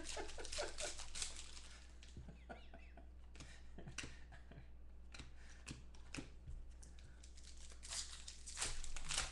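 Foil trading-card packs being torn open by hand, the wrapper crinkling and crackling in short bursts, with cards shuffled between the hands; the crinkling gets busier near the end as the next pack is ripped open.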